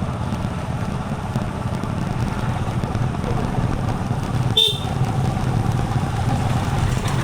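Motorcycle engine running steadily while riding, with a short horn toot about four and a half seconds in.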